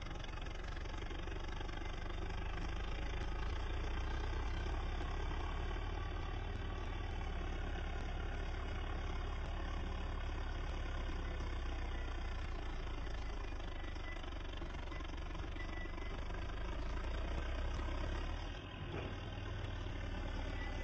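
Diesel tractor engine running steadily under heavy load as it pulls a trailer stacked high with sugarcane, with a brief drop in level near the end.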